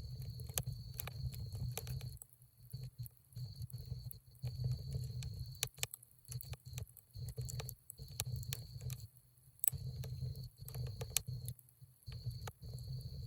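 Wood fire crackling, with irregular sharp pops and snaps over a low rumble that comes and goes.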